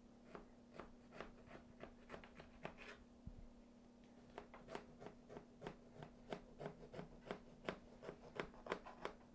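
A knife sawing through the crumb topping of an amaretto crumb cake: faint, quick crunching strokes, about two or three a second, with a break of about a second a third of the way through.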